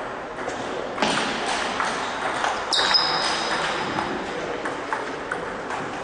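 Table tennis rally: the celluloid ball clicking off the bats and the table in a quick, uneven series, over a steady hall hum. A short ringing ping sounds about three seconds in.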